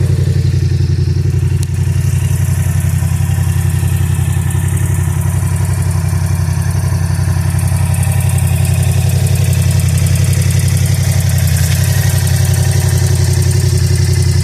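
Yamaha R7's parallel-twin engine idling steadily, with a loud, even, low-pitched exhaust note and no revs.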